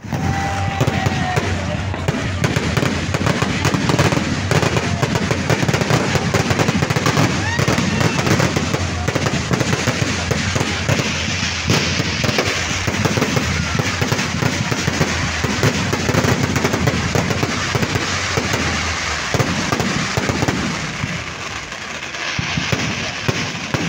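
Fireworks going off in a dense, continuous crackle of rapid pops and bangs, easing off a little about twenty seconds in.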